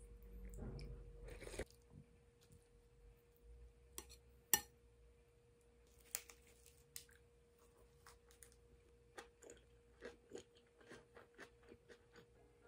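Quiet eating sounds: a rustle at the start, a sharp tap of a utensil on a dish about four and a half seconds in, then a run of small crunches from chewing a lettuce wrap. A faint steady hum runs underneath.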